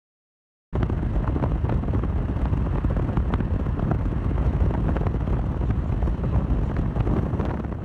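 Wind buffeting the microphone: a loud, rumbling rush with scattered crackles that cuts in abruptly about a second in and begins to fade near the end.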